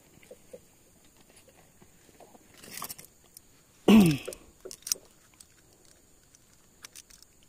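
A short vocal exclamation with falling pitch about four seconds in, the loudest sound, with a brief rustle of handling noise just before it and a few light clicks after, over a low background.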